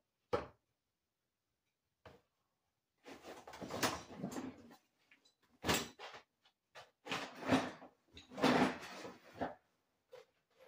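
Rummaging among things stored under a wooden workbench. One sharp knock, a short pause, then irregular bouts of shuffling and clattering with several sharp knocks.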